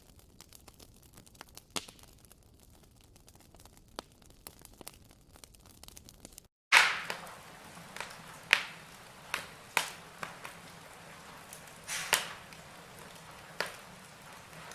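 Wood campfire crackling, with scattered sharp pops over a low hiss. The sound drops out for a moment about six and a half seconds in, then returns with a loud crack, followed by louder pops every second or so.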